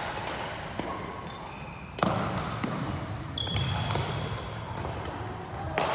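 Badminton rally in a large hall: sharp racket strikes on the shuttlecock, a loud one about two seconds in and another near the end, with lighter hits and footsteps between them and brief high shoe squeaks on the court floor.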